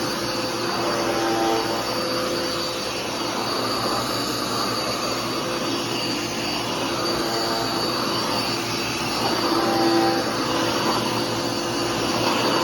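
Dirt Devil PowerMax Pet upright vacuum cleaner running steadily, a continuous rush of air with a steady high motor whine; lower tones come and go and the level swells slightly a few times as it is worked over the floor.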